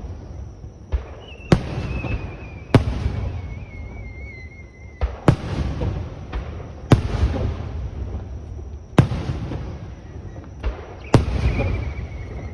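Fireworks display: aerial shells bursting with loud sharp bangs, about six big ones and several smaller pops, each followed by a rumbling echo. Twice a high, wavering whistle follows a burst and slowly falls in pitch.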